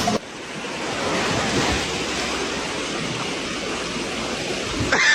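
A steady rushing noise that swells over the first second, holds, and stops abruptly near the end.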